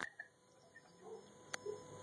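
A sharp click from the weather radio as its alert tone cuts off, then near silence with a few faint clicks. From about a second in, a faint low hum and a faint thin tone come in.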